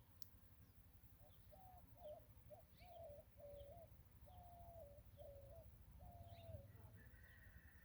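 A dove cooing faintly in a run of about eight short notes, with small birds giving thin, high chirps now and then.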